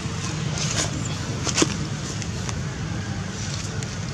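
Dry fallen leaves crackling and clicking as a macaque picks through the leaf litter by hand, with a sharper click about one and a half seconds in, over a steady low outdoor rumble.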